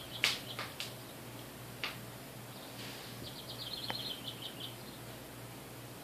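A small bird calling: a rapid trill of short, high chip notes at the start and again about three seconds in, with a few sharp clicks in the first two seconds.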